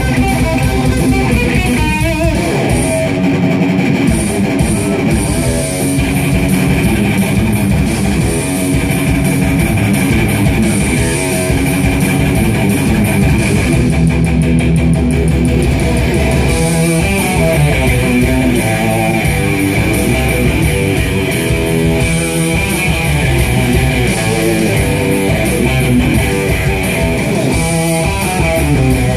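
Electric guitar played live through an EVH amplifier: loud, continuous instrumental rock with notes moving constantly, over a full low end.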